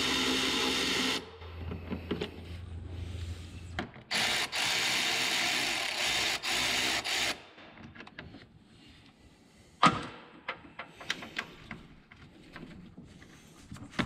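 Power tool on a 10 mm socket running in two spells as fan shroud bolts are backed out, stopping briefly in between. Light clicks of metal parts follow, with one sharp knock about ten seconds in.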